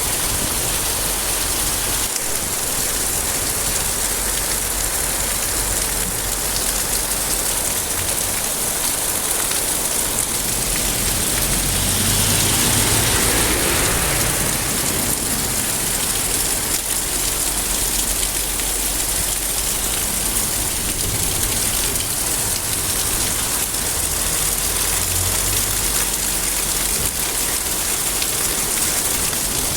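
Steady, heavy rain falling and pattering on surfaces, swelling briefly louder about halfway through.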